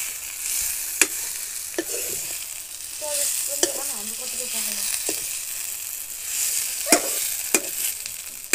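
Vegetables sizzling as they are stir-fried in a metal wok, with a metal spoon scraping through them and clinking sharply against the pan about five times.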